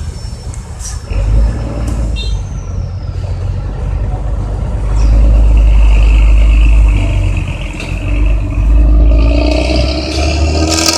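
Intercity bus's diesel engine and loud aftermarket exhaust running with a heavy, deep rumble, swelling as it is revved about five seconds in and again near nine seconds.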